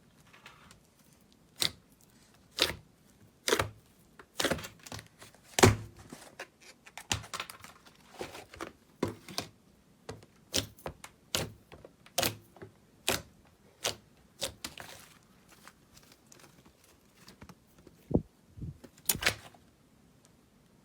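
Slime being handled and pressed, giving a string of sharp, irregular clicks and pops, roughly one or two a second, the loudest about six seconds in.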